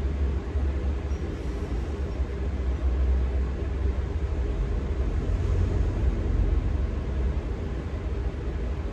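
A steady low rumble under an even hiss, with no distinct strokes or clicks.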